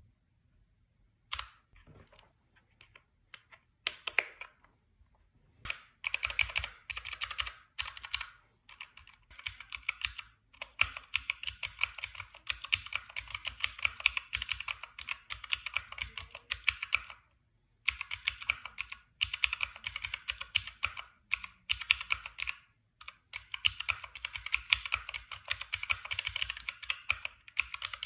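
Fast typing on a Motospeed K23 mechanical number pad with clicky Outemu blue switches, each keypress a sharp click. A few scattered presses open it, then rapid runs of keystrokes follow, broken by short pauses.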